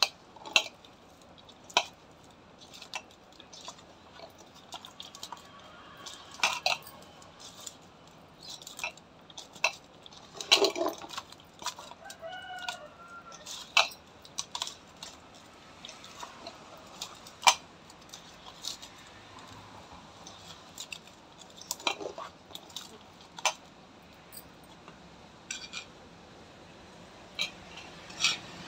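A hand mixing cooked rice in a steel bowl, the bangles on the wrist clicking against each other and the bowl in irregular sharp clinks, with soft squishing of the rice. About midway a chicken calls briefly.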